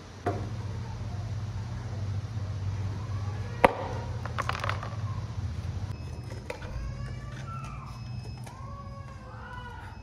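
Air filter box of a Hero motorcycle being opened and the filter element pulled out: scattered plastic clicks and knocks, the loudest a sharp snap about three and a half seconds in, over a steady low hum. In the second half, a run of short high animal calls.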